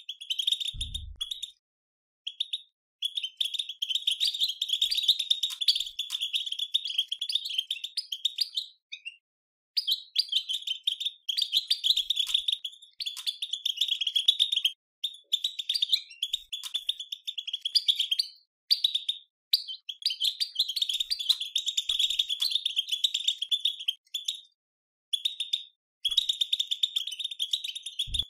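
European goldfinch twittering song (the 'batbata'): fast, dense chattering in phrases of a second to several seconds, broken by short pauses. This is the kind of twitter used to stimulate other goldfinches to sing.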